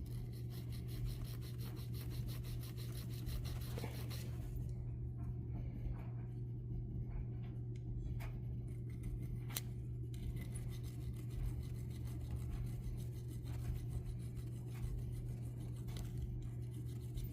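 Small hand file rasping on a brass model-locomotive part in quick, fine strokes for about the first four seconds, then occasional light clicks and scrapes as the part is handled, over a steady low hum.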